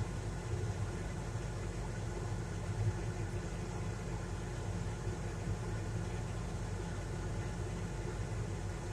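John Deere 8770 tractor's diesel engine running steadily, a low, even drone.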